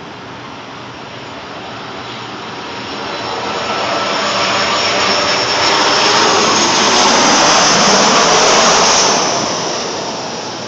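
Twin-engine narrow-body jet airliner flying low overhead on final approach to land. Its engine noise swells to a loud peak with a high whine, then falls in pitch and fades as it passes.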